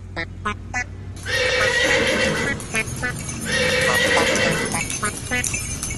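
A delman pony's hooves clip-clopping on brick paving in a steady run of hoofbeats as the horse-drawn carriage passes. Twice, about two seconds apart, a louder sound lasting about a second and a half rises over the hoofbeats.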